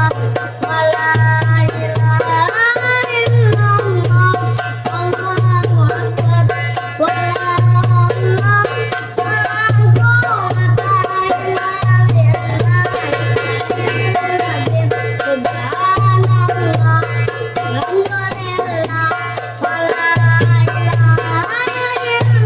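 A boy singing a sholawat melody in long gliding phrases over a darbuka (goblet drum) rhythm: deep dum strokes in a repeating pattern with sharp tek slaps between them.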